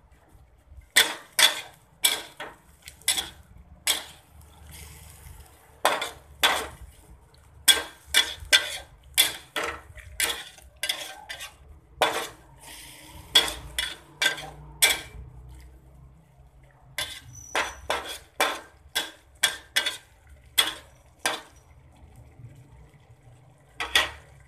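Spatula knocking against a pan while stir-frying broccoli, carrots and chilies, in irregular runs of sharp clanks with short pauses between.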